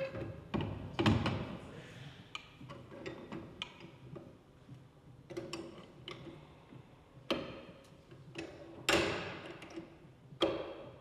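Plastic pipe being laid into the metal clamping devices of a butt-fusion welding machine and the clamps closed: a series of irregular knocks and clanks. The loudest come about a second in and near nine seconds in, the latter ringing briefly.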